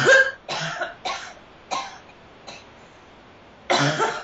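A woman coughing: a string of about six short coughs, the loudest at the start and another loud one near the end.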